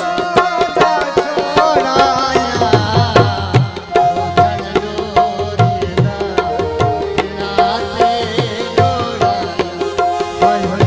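Live folk music: a hand drum keeps a fast, steady rhythm under a melody of long held notes, with a wavering melodic line over it in the first few seconds.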